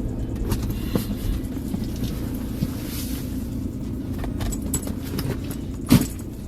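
Steady low rumble with scattered faint clicks and one sharp knock about six seconds in.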